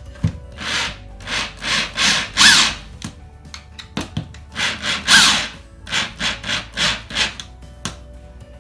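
Electric drill driving screws through a brass hinge into wood, in repeated short bursts, the screws grinding as they bite into the wood, with small clicks in between.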